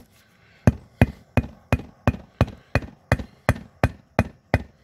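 Rubber mallet driving a new front-wheel bushing into the hub of a Cub Cadet GTX1054 riding mower wheel: a steady run of about a dozen sharp knocks, roughly three a second, starting just over half a second in.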